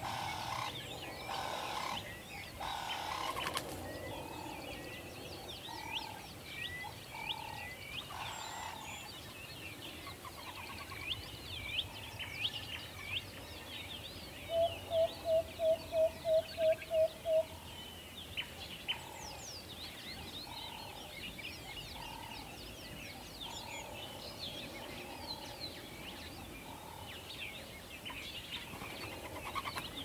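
An owl gives a quick series of about ten short, even hoots in the middle. Small birds chirp and twitter in the background throughout.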